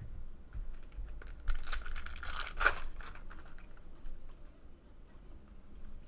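Foil trading-card pack wrapper being torn and crinkled, with cards being handled. The loudest tearing and rustling comes in a burst from about a second and a half to three seconds in, with light clicks of cards around it.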